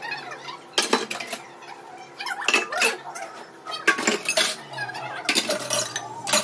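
Stainless-steel dishes, a bowl and a tumbler, being washed by hand at a sink, clinking and clattering against each other and the basin in irregular knocks, a few each second.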